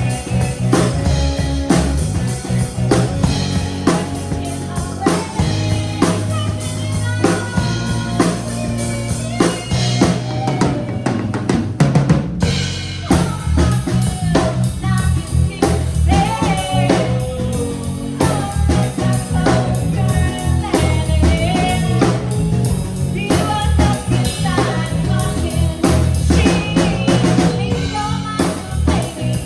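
Band music: a song driven by a full drum kit beat, with some singing over it.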